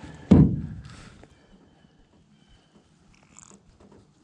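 A single heavy thump about a third of a second in that dies away within half a second, followed by faint small knocks and handling noises.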